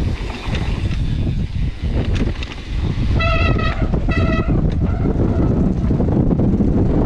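Gale-force wind buffeting the helmet camera's microphone, a heavy, continuous low rumble. About three seconds in, two short high tones sound one after the other, each about half a second long.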